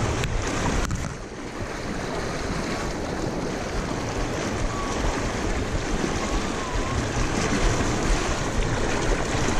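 Fast mountain river rushing and splashing over a shallow rocky riffle, a steady wash of moving water.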